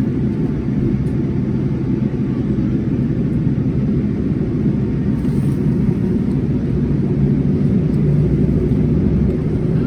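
Steady low rumble of a Boeing 787-10's engines at takeoff thrust, with airframe noise, heard inside the passenger cabin; it grows slightly louder near the end.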